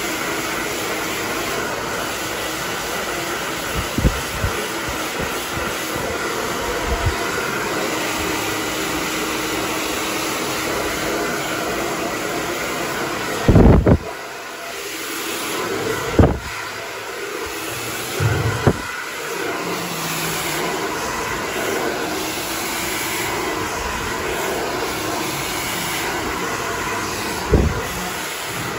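Hand-held hair dryer blowing steadily while hair is pulled through a round brush for a blow-dry. A few brief thumps break in, the loudest about halfway through.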